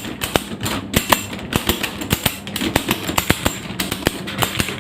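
A 50 mm endless ratchet strap's buckle being pumped to tighten the strap: a quick, uneven run of sharp clicks as the pawl snaps over the spool's teeth with each stroke of the lever.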